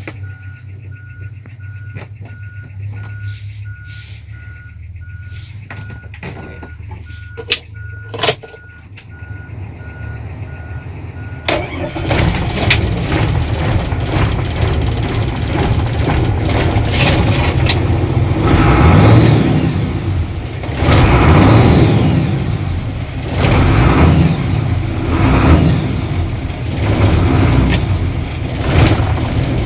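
Diesel engine of a Hino Ranger five-ton truck over 30 years old, jump-started on a flat battery and heard from inside the cab. For the first eleven seconds or so there is a steady low hum and an evenly repeating beep. Then the engine fires with a sudden loud burst and runs very loud, swelling several times as it is revved.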